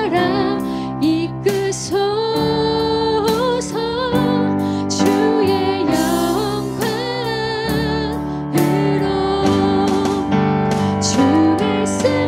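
Live worship band playing a Korean praise song: young female voices singing the melody over keyboard, acoustic guitar and drums, with a steady beat and occasional cymbal strokes.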